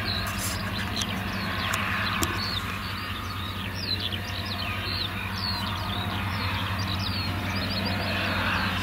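Steady low drone of a Claas Jaguar self-propelled forage harvester and the tractor running alongside it, chopping whole-crop silage. Many short bird chirps come and go over the drone.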